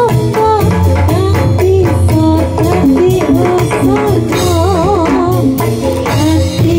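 Loud live music for a jathilan trance-dance session: steady drumming under a wavering melody with heavy vibrato.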